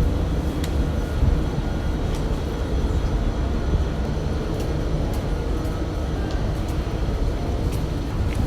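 Metro train and station ambience: a low, steady rumble with a few faint steady tones and scattered light clicks.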